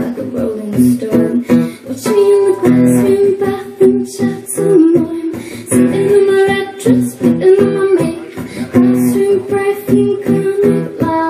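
A woman singing with a strummed acoustic guitar in a live acoustic performance.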